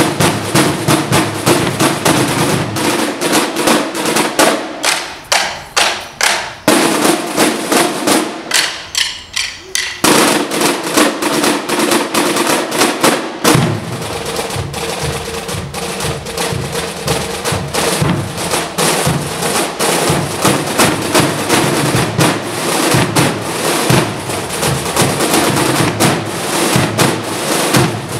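A military corps of drums playing side drums and a bass drum together: fast rudiments and drum rolls in a continuous rhythmic display. The deeper beats drop out for a stretch between about 3 and 13 seconds in, then come back under the side drums.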